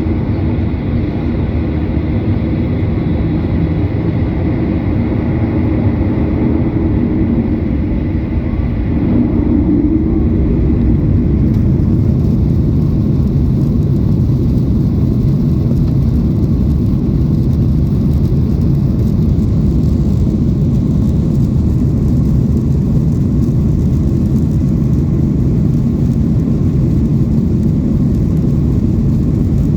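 Cabin noise of a Boeing 737-900ER during takeoff: its CFM56-7B jet engines and the rushing air make a steady noise with a faint high whine. About ten seconds in, the whine fades and a deeper rumble grows slightly louder.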